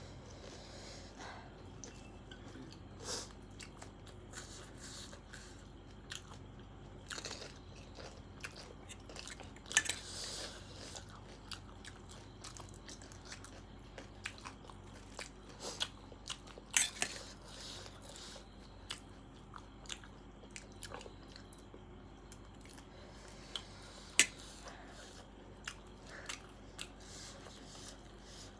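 A person chewing and biting food close to the microphone, with scattered short mouth clicks and a few sharper ones.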